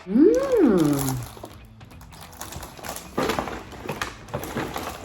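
Background music, opening with a short pitched sound that rises and then falls over about a second, with light rustling and handling noises after it.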